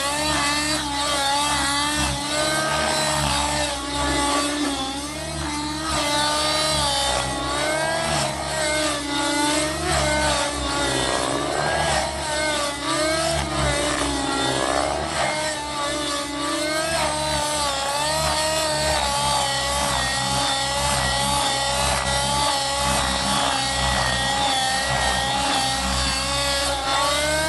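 Miniature Aircraft Fury 55 RC helicopter in flight, its OS 50 nitro glow engine and rotor running hard, the engine note rising and falling as the helicopter is thrown through aerobatic manoeuvres, with swooping passes in the middle.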